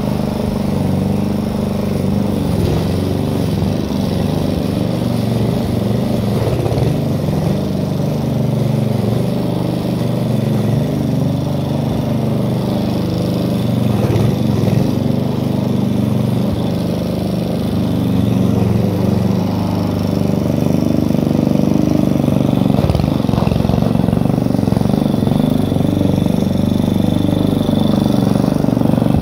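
Yard Force petrol lawn mower engine running steadily while the mower is pushed through long grass, cutting. It gets a little louder about two-thirds of the way in.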